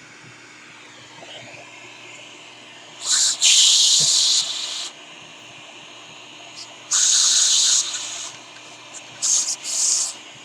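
Compressed air from a blow nozzle hissing in three short blasts a few seconds apart, blowing iron filings and dirt out of a car radio.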